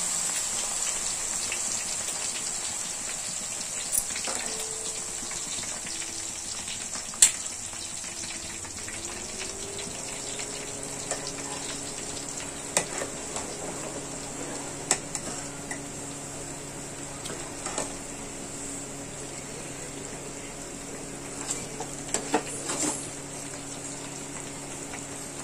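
Wet ground herb paste sizzling and frothing in hot coconut oil in an aluminium pot, a steady hiss that slowly eases. A metal spoon clicks against the pot now and then.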